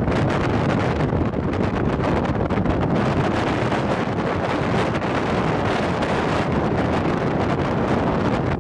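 Strong wind buffeting the microphone: a loud, steady rush of noise with small gusty swells.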